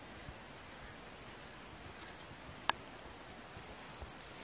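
Steady high-pitched insect chorus, pulsing about twice a second, with one sharp click about two and a half seconds in.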